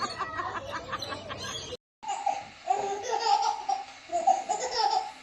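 High-pitched laughter in short repeated bursts, broken by a brief dropout about two seconds in before it resumes.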